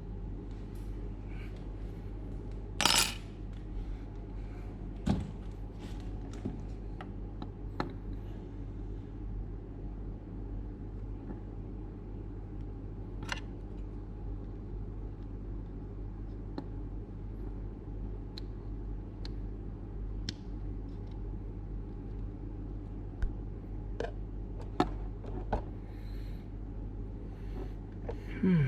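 Small hard parts and tools clicking and knocking as an automatic solder-feed gun is handled and taken apart, with a sharp knock about three seconds in and another near the end, over a steady low hum.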